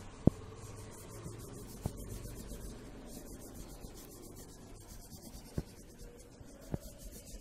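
Wax crayon rubbing back and forth over paper laid on a leaf, a steady dry scratching. A few sharp knocks break in, the loudest about a quarter of a second in.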